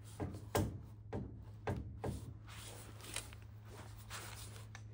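A supercharger and its attached carburettor being worked loose and slid off a splined drive shaft by hand. There is a run of sharp metallic knocks and clicks, then scraping and rustling as the unit comes free.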